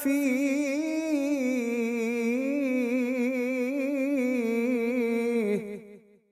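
A man's voice in melodic Quran recitation (tilawat), holding one long ornamented note that wavers up and down, then stopping suddenly about six seconds in.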